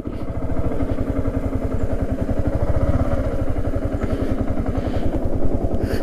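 Yamaha R15's single-cylinder four-stroke engine running steadily with an even, rapid pulse, then switched off at the very end.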